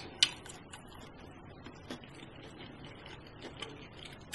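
Quiet, close-miked eating sounds: a few sharp clicks and soft crackles as fingers pick crispy roasted Brussels sprouts out of a plastic takeout tray. The sharpest click comes just after the start.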